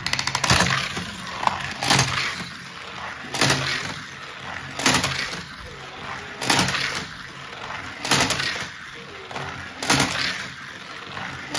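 Die-cast toy cars circling a plastic race-track set, a short clattering rattle about every one and a half seconds as each lap sends a car rattling through the plastic track pieces.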